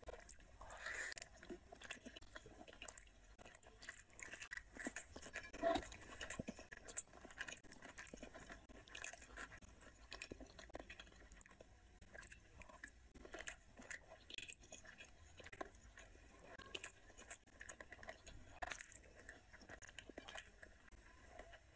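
A person chewing mouthfuls of rice and curry eaten by hand, with irregular short wet mouth clicks, and fingers mixing rice on a plate in between.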